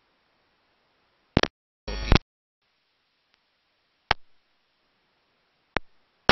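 Audio dropout: the track is nearly silent apart from a faint hiss, broken by a few sharp clicks and one short crackling burst about two seconds in.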